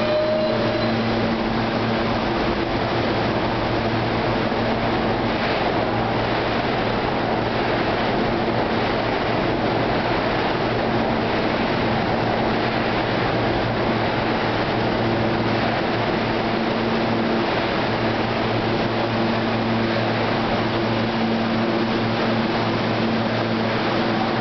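R160B subway train standing at the platform: a steady low hum of several level tones from the train's equipment, over constant station noise.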